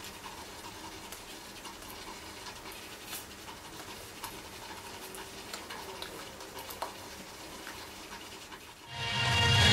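Faint room noise with soft rustles and small taps from a person signing with their hands against their shirt, about 20 dB below the surrounding audio. Loud music comes in suddenly near the end.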